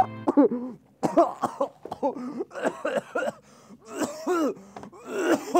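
A man's voice making a rapid series of short, strained cough-like sounds, several a second.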